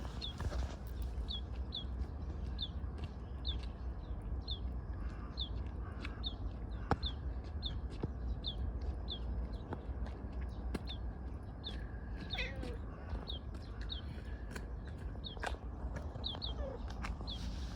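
A tortoiseshell cat meowing briefly, once about twelve seconds in and once near the end. Short high chirps, like a bird's, repeat more than once a second throughout, over a steady low rumble.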